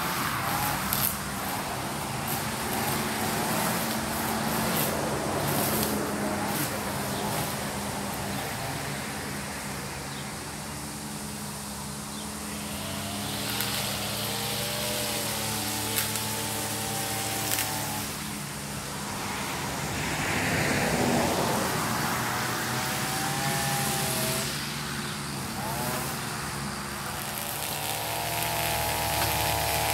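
Lawn mower engine running steadily, its pitch wavering now and then.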